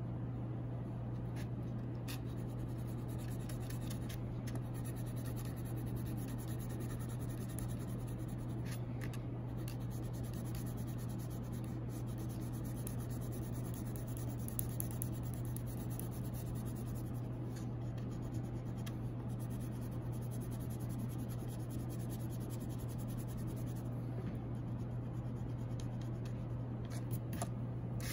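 Wax crayon rubbed back and forth on paper, colouring in a large area with continuous scratchy strokes, over a steady low hum.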